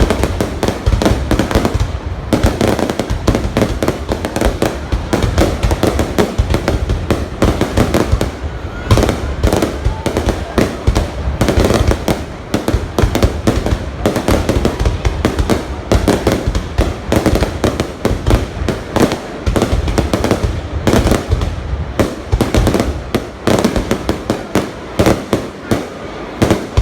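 Fireworks going off in rapid, unbroken succession: a dense stream of bangs and crackles, many per second.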